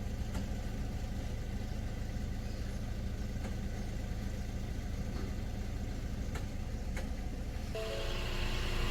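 Petrol engine of a walk-behind concrete cutter running steadily at idle, with no blade cutting. Background music comes in near the end.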